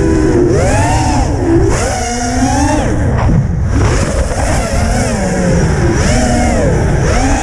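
The brushless motors and propellers of a QAV-R racing quadcopter whine in several tones. The pitch keeps rising and falling with the throttle, and it drops away briefly about three seconds in. A steady low rumble runs underneath.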